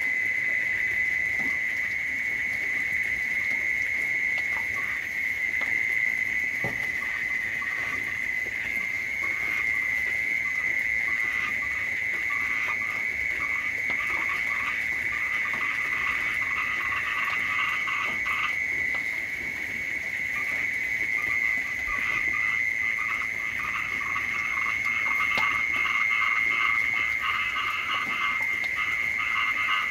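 A night chorus of frogs calling: a steady high drone with rapid pulsing trills layered over it, the trills growing thicker in the second half.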